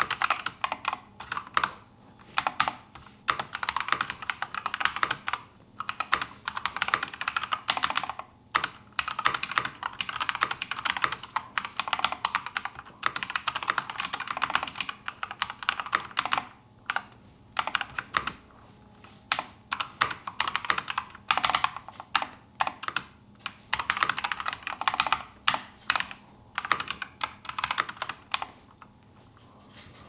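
Typing on a full-size Keychron mechanical keyboard: rapid runs of keystroke clicks and key bottom-outs, broken every few seconds by brief pauses.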